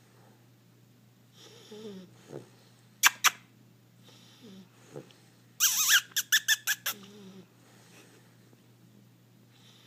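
Sleeping puppy's soft snoring breaths, broken by loud high-pitched squeaks: two quick ones about three seconds in, then a rapid run of about six near the six-second mark.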